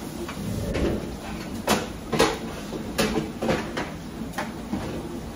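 Kitchen clatter: a run of sharp knocks and clicks as cookware and dishes are handled on a counter. It starts about a second and a half in, with a knock every half second or so.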